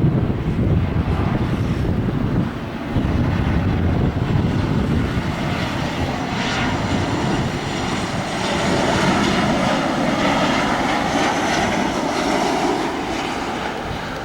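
Jet airliner engines running loud: a deep rumble, with a higher whine growing stronger in the second half.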